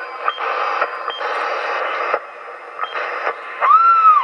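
Sharp CB-2460 CB radio receiving AM through its speaker: bursts of static hiss that cut in and out as transmissions key up and drop, several opening with a short high beep. Near the end a whistling tone rises and holds.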